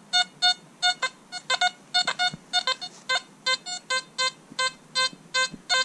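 XP ORX metal detector giving short, repeated electronic target tones, about three a second, as the coil is swept back and forth over test coins. The tones start high while the coil passes over a silver Victorian shilling, reading in the 90s on the display. About two seconds in, lower tones take over.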